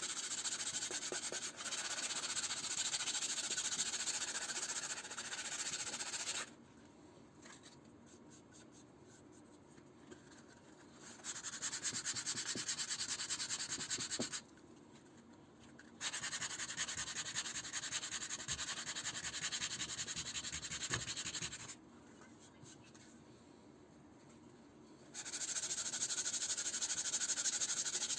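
Hand sanding of a wooden clock case: a rough, even rasp of abrasive on wood in stretches of several seconds. Each stretch cuts off abruptly into a quieter gap, three times.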